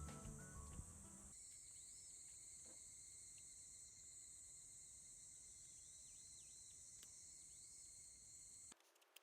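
Faint, steady high-pitched insect chirring, with a few small sliding calls over it, until it cuts off abruptly near the end. Music fades out in the first second.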